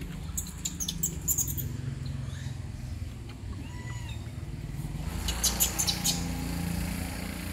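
Short clusters of high-pitched squeaky chirps, once about half a second in and again around five seconds in, with a faint short call near four seconds, over a steady low rumble.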